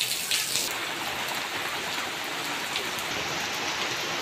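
Heavy rain falling steadily on a wet concrete courtyard, a dense even hiss of pouring water with no wind.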